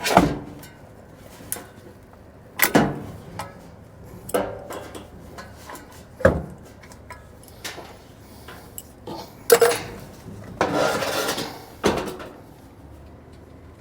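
Hand tools and metal parts knocking and clinking against the sheet-metal furnace blower assembly as it is taken apart: five sharp knocks a couple of seconds apart with lighter clicks between, and about a second of rattling scrape shortly before the last knock.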